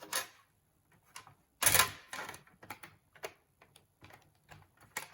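Scattered plastic clicks and knocks of a laptop's casing parts being pushed back into place, with one sharp clack about a second and a half in.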